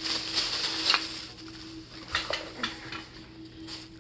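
Plastic shopping bag rustling and crinkling as it is handled, in irregular crackly bursts, busiest in the first second.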